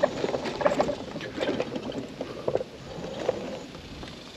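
Mobility scooter rolling over bumpy grass: irregular rattles, clicks and knocks from the scooter, busy at first and thinning out after about three seconds.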